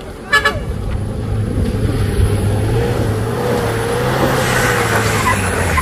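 Heavy truck's diesel engine running with a steady low drone and a wavering whine above it, growing louder over the first two seconds. A brief pitched sound comes just after the start.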